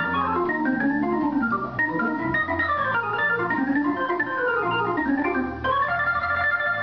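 An organ played fast: quick runs of notes rising and falling over held bass notes, settling into a sustained chord near the end.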